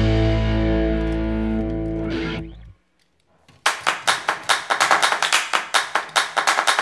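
Background music: a held electric guitar chord fades out, a short gap of silence follows, and then a new track starts with a quick, steady beat.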